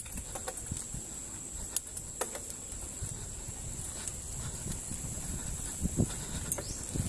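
Mountain bike riding down a dirt singletrack: a steady low rumble of tyres on dirt, with scattered clicks and knocks from the bike rattling over bumps.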